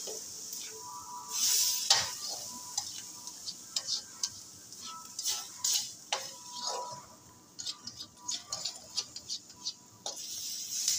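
Spatula scraping and knocking against a metal wok, with short bursts of sizzling. Diced chicken and green capsicum are being stir-fried in oil.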